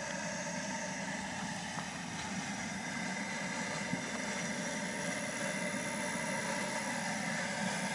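Steady low roar of a 38,000 BTU propane burner firing inside the smoker's round firebox.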